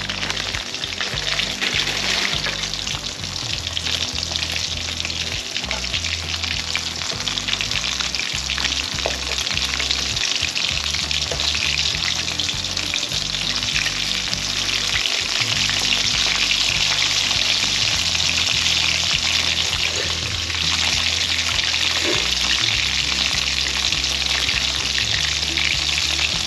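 Food frying in hot oil: a steady, dense sizzle that grows a little louder about halfway through.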